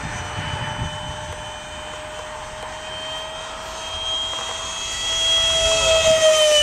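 Radio-controlled model plane's motor whining at a steady pitch. The whine grows louder about five seconds in, and its pitch drops near the end as the plane passes by.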